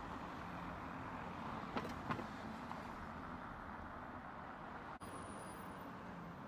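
Street traffic noise: a car driving along the road, a steady rush of tyres and engine. Two sharp clicks come about two seconds in, and the sound drops out for an instant about five seconds in.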